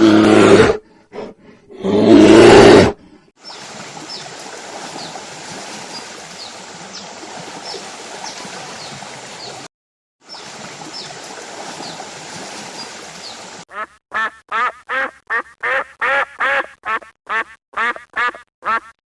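Duck quacking in a quick series of short, loud calls, about three a second, in the last five seconds. Before it, two loud bursts near the start and then a steady rushing noise like running water with faint high chirps.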